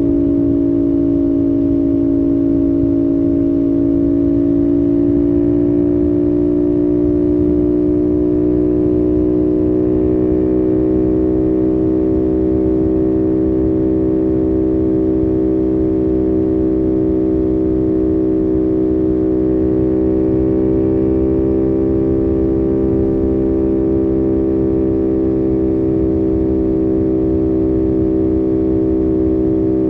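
CFMOTO 450SS parallel-twin engine running steadily at cruising speed, its note rising a little a few seconds in and then holding, over a low rush of wind and road noise.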